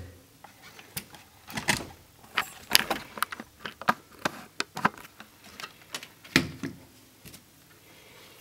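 Irregular clicks and knocks from a multimeter and its test leads being handled and set down on the TV's metal back panel, with a heavier knock about six seconds in.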